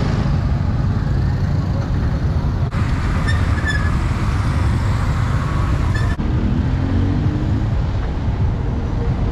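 Street traffic noise: a steady low rumble of passing motor vehicles, with two brief dips in the sound.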